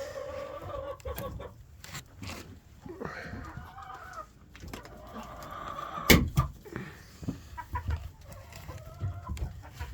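Chickens clucking and giving several drawn-out calls, with one sharp knock about six seconds in.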